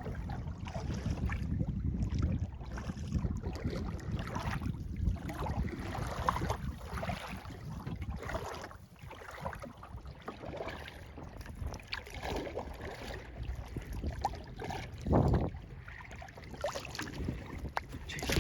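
Kayak paddling: water splashing and dripping off the paddle blades with each stroke, at a slow, irregular rhythm. Wind rumbles on the microphone, strongest in the first half, and there is a single louder thump about fifteen seconds in.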